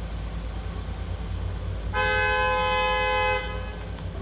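A vehicle horn sounds once, a steady held note of about a second and a half, starting about two seconds in, over a steady low street rumble.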